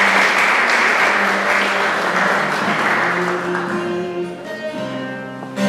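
Audience applauding, the clapping dying away about four seconds in, with background music carrying on beneath it.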